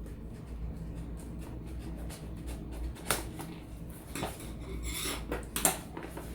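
Cardboard packaging being handled and opened: scattered small clicks, a sharp knock about three seconds in, a brief rub or rustle near five seconds, then another sharp knock, over a steady low hum.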